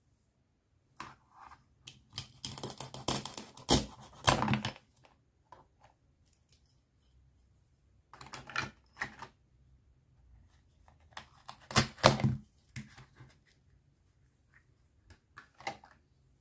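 Hard plastic toy fruit pieces clicking and clattering against each other, the plastic cutting boards and the plastic basket as they are handled and put away. The sound comes in several bursts of rapid clacking, the loudest about a quarter of the way in and again about three-quarters through.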